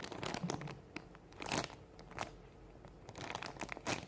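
Plastic packaging crinkling and rustling in irregular bursts as it is handled, loudest about a second and a half in and again near the end.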